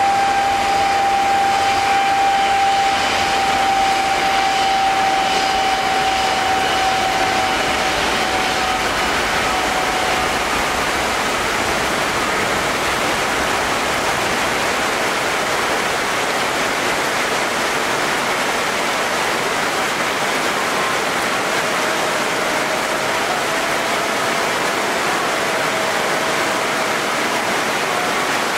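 Airbus A350-900's Rolls-Royce Trent XWB engines at takeoff power on a rain-soaked runway: steady jet noise mixed with heavy rain and tyre spray, with a high engine whine that fades out about ten seconds in as the jet pulls away.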